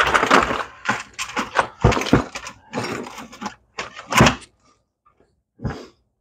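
A run of clattering knocks and thuds from parts and tools being handled, with a heavy thump a little past four seconds in and a last knock near the end.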